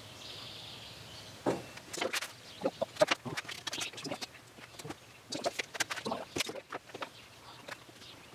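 Irregular knocks, taps and clicks of wooden parts and tools being handled on a workbench, coming in scattered clusters through the middle seconds.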